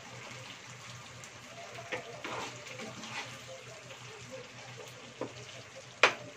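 Thick tomato sauce of a pork stew simmering and bubbling in a non-stick frying pan while a metal spatula stirs it, scraping against the pan a few times, with one sharp clack of the spatula near the end.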